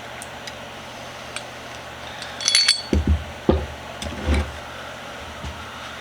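Small steel parts of a mini bench vise being handled during reassembly: scattered light clicks, a short metallic jingle about two and a half seconds in, then a few dull knocks.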